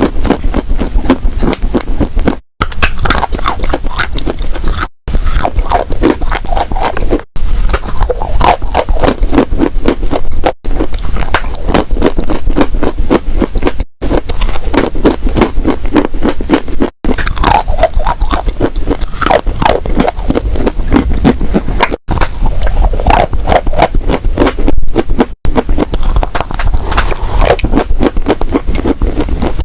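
Dry clay crunching and crumbling close to the microphone: a dense run of crisp crackles and scrapes, broken by abrupt cuts every few seconds.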